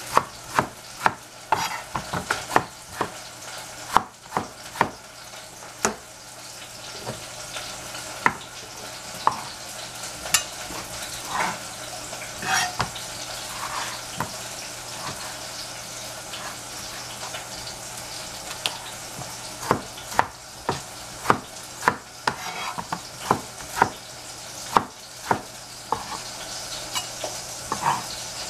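A kitchen knife cutting tomatoes on a plastic cutting board, with sharp knocks at irregular intervals, thickest at the start and toward the end. Under it, a steady sizzle of shiitake mushrooms frying in oil in a hot pan.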